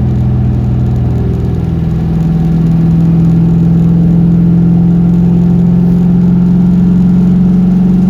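1998 Mustang Cobra's 4.6-litre DOHC V8 running; its note rises about two seconds in, then holds steady at a higher speed.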